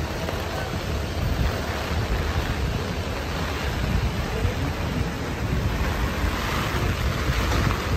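Heavy rain hissing steadily on a wet street, with wind buffeting the microphone in a low, fluttering rumble.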